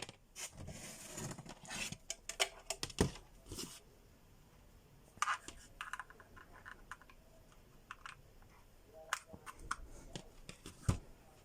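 Irregular small clicks, taps and brief scraping of objects being handled, in clusters with short pauses between them, and one sharper knock near the end.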